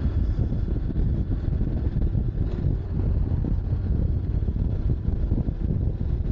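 Wind rushing over the microphone with the low rumble of a Honda NC750X's parallel-twin engine underneath, riding at about 35 km/h.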